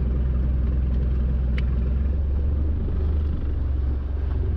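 A fishing boat's engine runs steadily as a constant low rumble, with a faint click about a second and a half in.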